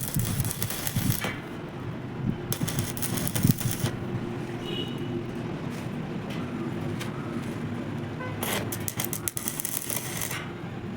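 Electric arc welding: the arc crackles and hisses in three short runs of one to two seconds, each starting and stopping abruptly, with a steady low hum of the welding machine in between.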